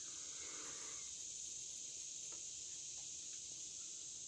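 Insects, crickets by the sound of it, chirring steadily in one high-pitched band, with a couple of faint clicks in the middle.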